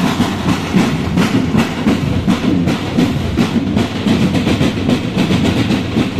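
Marching drum band playing, its drums beating a steady, repeating rhythm.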